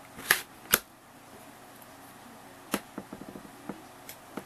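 A plastic card scraped twice across a metal nail-stamping plate to clear off the polish: two quick scrapes about half a second apart. Later a single tap and a run of light ticks follow as a silicone stamper is pressed onto the plate.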